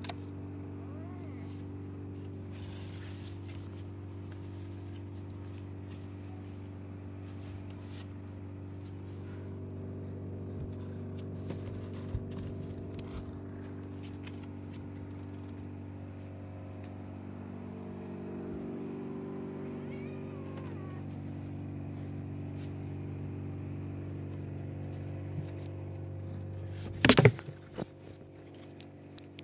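A steady low mechanical hum, with a few light taps and scratches on cardboard. Near the end comes one loud knock as the cat's paw hits the cardboard right by the phone.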